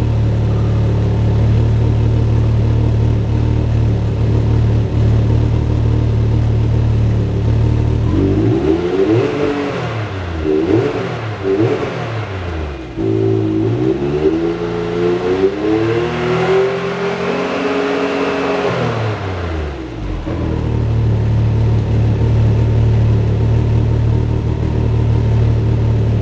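Can-Am Maverick X3's turbocharged three-cylinder engine running through a freshly installed S&S Power Tune XTO aftermarket muffler: idling steadily, then revved in a few quick blips and one longer rev that climbs and falls back, before settling to idle again.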